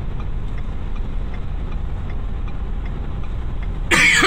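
Car engine and road noise heard from inside the car as a steady low rumble, with faint ticking about twice a second. Near the end a brief, louder squeal falls in pitch.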